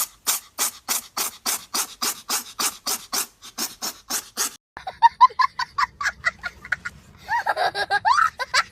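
A rhythmic rasping or panting sound, about four strokes a second, stops suddenly after about four and a half seconds. Short animal calls follow, bird-like and clucking, and grow busier near the end.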